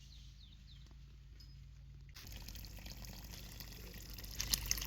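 Garden hose turned on: water spraying and splashing sets in about two seconds in and grows louder. Faint bird chirps come before it.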